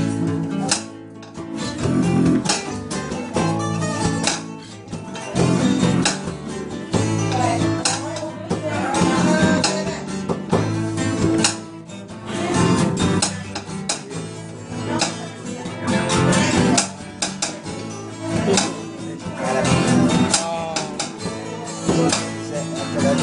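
Several acoustic guitars playing a rock song together, strummed in a steady rhythm.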